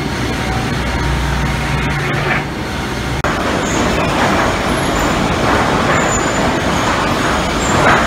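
Sawmill machinery running: loud, continuous noise of board conveyors and the lumber sorting line. A low steady hum is heard for the first couple of seconds, then dies away.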